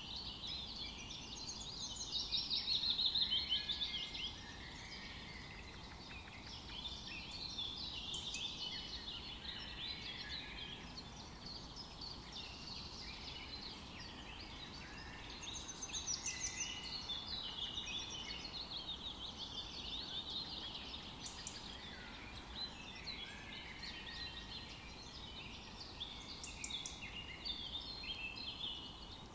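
Several birds singing and calling at once, a busy mix of high chirps and trills, loudest about three seconds in.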